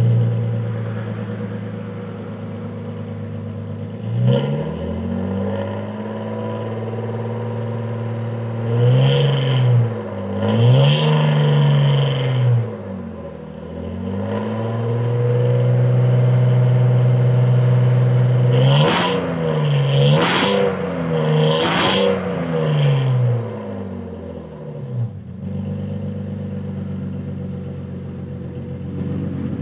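BMW E36's M52 inline-six running through its newly fitted muffler and exhaust valve, idling and revved in blips: one short rev about four seconds in, two near the middle, and three quick revs in a row about two-thirds of the way through, each rising and falling back to idle.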